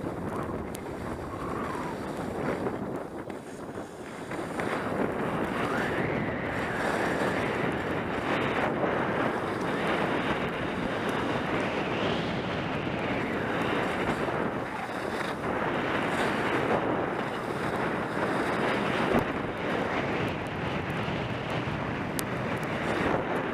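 Wind rushing over the microphone together with the hiss and scrape of skis sliding over packed snow on a downhill run. The noise gets louder about four and a half seconds in and then stays steady.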